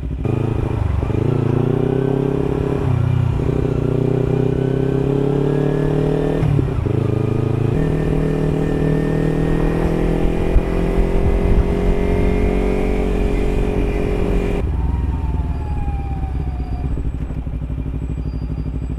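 Kawasaki Ninja 300's parallel-twin engine accelerating under way, its note rising, dipping at two gear changes about three and seven seconds in, then pulling steadily. About fifteen seconds in the throttle is rolled off and the engine note drops.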